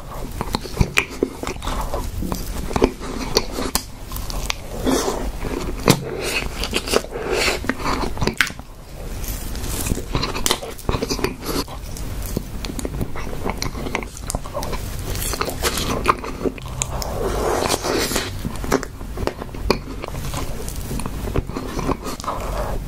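Close-miked chewing of soft, creamy tiramisu cake, with a dense run of short, sharp mouth clicks and smacks.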